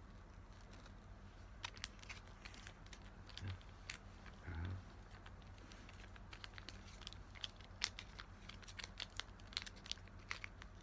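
Faint, irregular crinkling with many sharp crackles, like something crinkly being handled, starting a couple of seconds in. There are two brief soft low sounds near the start.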